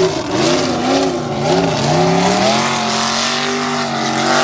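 Mega mud truck's engine revving hard, its pitch rising and falling with the throttle about twice a second, then held steady at high revs near the end.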